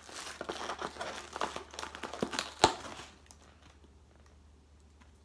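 Takeout packaging being handled: a plastic bag crinkling and a foam clamshell container rustling as it is opened, with many small crackles and one sharp click about two and a half seconds in. The rustling stops about three seconds in.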